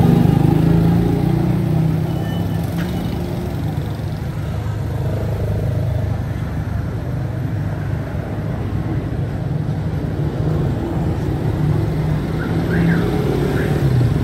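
Street traffic: the steady running of car and motorbike engines and road noise passing close by.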